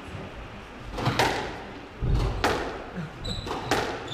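Squash rally: the ball is struck by racquets and hits the court walls in sharp knocks about a second apart, with one heavier thud about halfway through. Short high squeaks of shoes on the wooden court floor come near the end.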